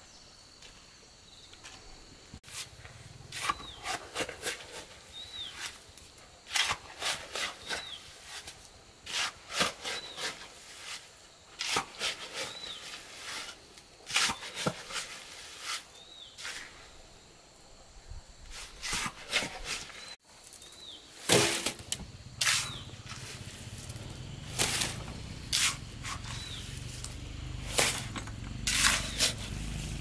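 Irregular sharp knocks and taps of hand work, some close together, with a short high chirp repeating every couple of seconds. A low steady hum starts about two-thirds of the way through.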